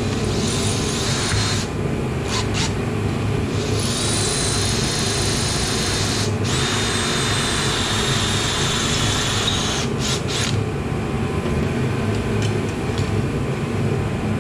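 A handheld power tool running in several long spells with a steady high whine and short breaks between them, over a constant low hum.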